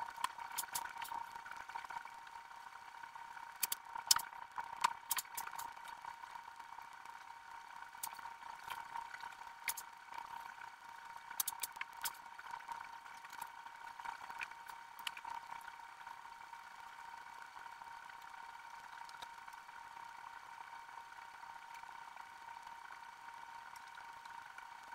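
A steady high-pitched hum with scattered sharp clicks and knocks, the clicks thickest in the first half.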